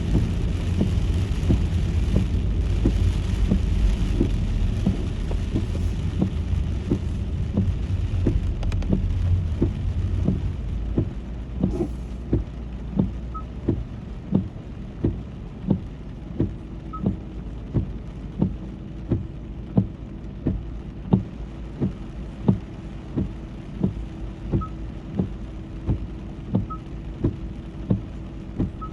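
Car driving in the rain with a steady low road rumble, which fades about eleven seconds in as the car slows to a stop. While stopped, a regular ticking knock comes about every 0.7 seconds, with a faint steady hum under it.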